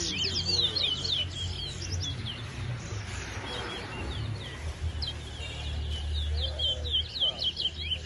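Caged towa-towa songbirds singing in fast runs of short, high, downward-swept chirps, thinning out in the middle and picking up again after about five seconds, over a low steady rumble.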